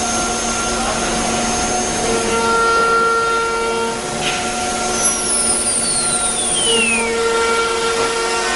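CNC wood router running with a steady, many-toned spindle whine. About five seconds in, one whine falls steadily in pitch over two seconds as a spindle winds down.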